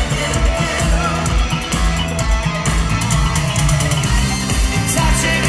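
Live rock band amplified in an arena, playing a guitar-led passage with few or no vocals over a steady drum beat of about two beats a second.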